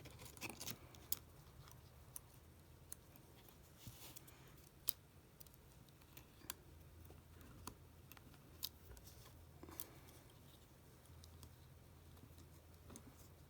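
Small tools clicking and tapping on an iPhone 7's internal metal and plastic parts, about a dozen faint, sharp clicks at irregular intervals, while the back camera's connector is worked into place under its bracket.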